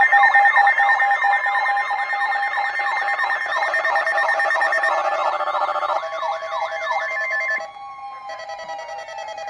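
Several emergency alert tones from phones sounding over one another for a snow squall warning: a pulsing steady alert tone under rapid, repeating falling sweeps. Most of them cut off about three quarters of the way through, leaving a softer steady tone and a falling glide near the end.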